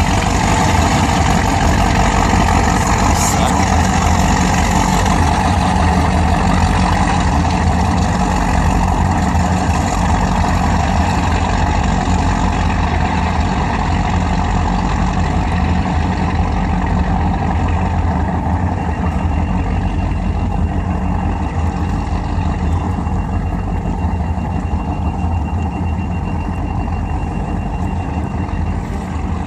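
Fountain power boat's engines running steadily at idle. A thin, steady high-pitched tone joins in for about the last third.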